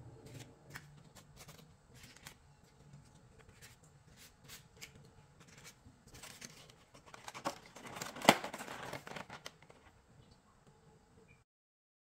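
Paper tulip liners of mini cheesecakes rustling as they are handled and set into a plastic tray, with light taps and clicks. The rustling grows denser about six seconds in, with one sharp click around eight seconds, and the sound cuts off shortly before the end.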